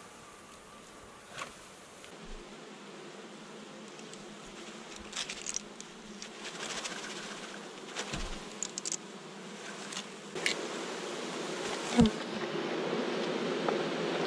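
A mass of honey bees buzzing, the hum growing louder through the second half, with a few sharp knocks and taps, the loudest near the end.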